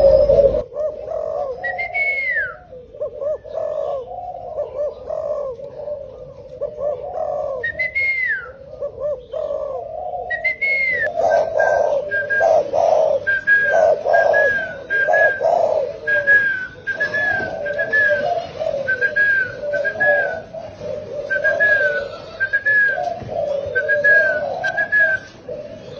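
Spotted dove cooing in repeated low phrases, with high whistled notes over it: a few long arching whistles in the first half, then quick short whistles in twos and threes.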